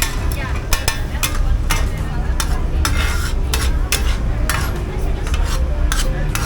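Food sizzling in a hot pan, with a metal utensil scraping and clinking against the pan about twice a second as the food is stirred.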